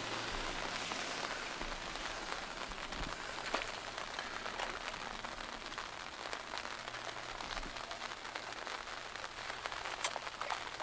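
Light rain falling on the river surface, a steady soft hiss with scattered small ticks, and one sharper click about ten seconds in.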